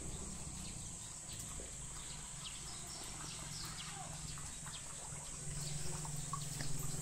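Faint outdoor ambience: a steady high-pitched insect drone with scattered short chirps.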